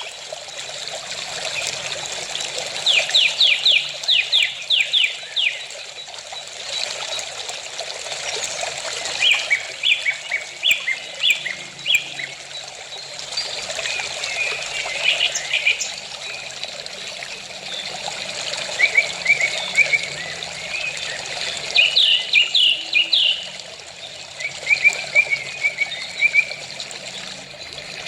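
Small birds chirping in quick runs of short notes, again and again, over a steady trickle of running water.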